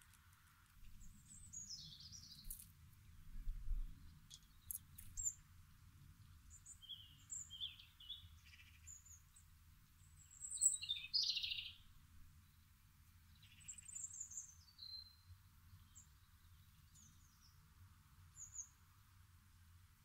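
Small songbirds chirping and twittering: scattered short high calls, several sliding down in pitch, loudest a little past halfway.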